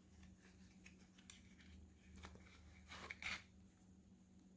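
Near silence with faint rustles and soft clicks from the knife's sheath being handled, the loudest a short scrape about three seconds in.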